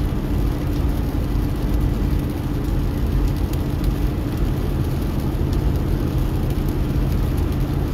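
Car engine running steadily, heard from inside the cabin as a low, even rumble with a constant hum.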